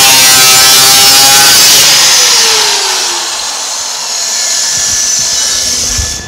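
Angle grinder grinding down a weld on the steel rear fender, its pitch sagging as it bites into the metal. It eases off around three seconds in, picks up again, and cuts off just before the end.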